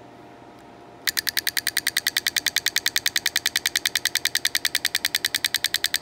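BMW VANOS camshaft-timing solenoid, freshly cleaned, clicking on a bench pulse driver: a rapid, even train of sharp clicks at about ten a second, as its valve plunger snaps back and forth. It starts about a second in and stops just before the end.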